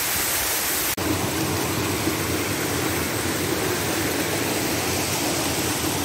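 Steady rush of a waterfall's falling water. About a second in the sound cuts off abruptly and resumes as a steady, lower-pitched rush.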